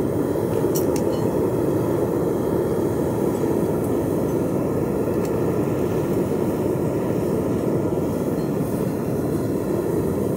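Propane burner of a homemade foundry furnace running at full pressure: a steady rushing flame noise, with a few faint clicks about a second in.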